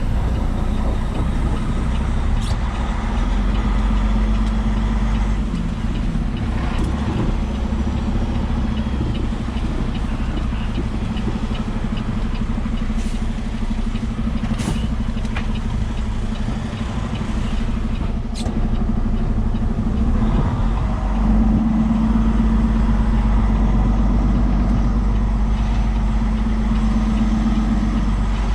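Diesel engine of a Peterbilt 389 semi truck running steadily, heard from inside the cab as a low drone that grows a little louder about three-quarters of the way through. A few sharp clicks are heard in the middle.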